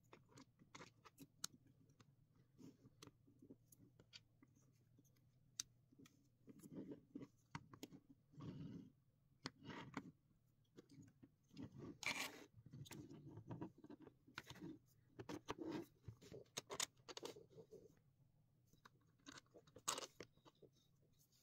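Faint handling of 3D-printed PLA plastic parts: irregular small clicks and short scrapes of plastic on plastic as brackets, rods and twist-locking pins are fitted together by hand.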